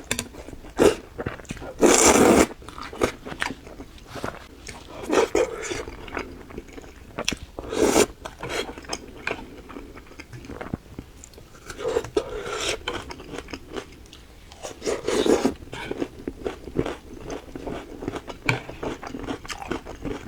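Close-miked eating: a person biting and chewing food, with many small mouth clicks and a louder bite or mouthful every few seconds.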